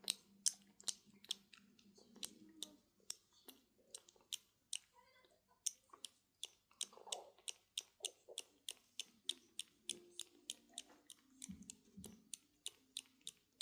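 A kitten drinking milk, making rhythmic wet sucking clicks about three to four a second.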